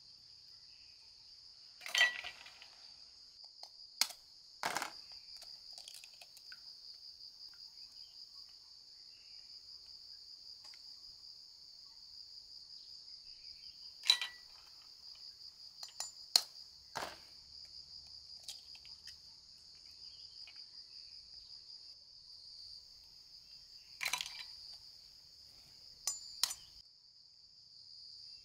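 Eggs being cracked and separated by hand: sharp taps and clicks of eggshells knocked against a bowl rim and shells set down on a china plate, about nine in all, spread out with pauses between. Under them, a steady pulsing chorus of insects.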